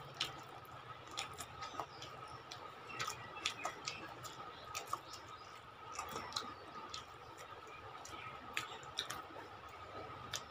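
Faint, irregular clicks and smacks of people eating rice and curry with their fingers and chewing, over a faint steady hum.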